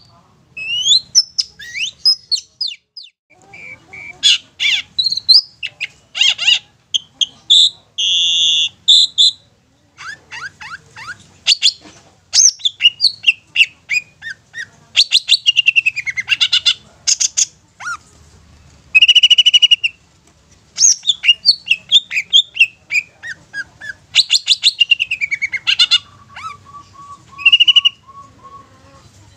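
Long-tailed shrike singing a loud, rambling, varied song of rapid chips and quick rising and falling whistles, broken by a few longer buzzy notes. Near the end it gives a quick run of even, lower notes.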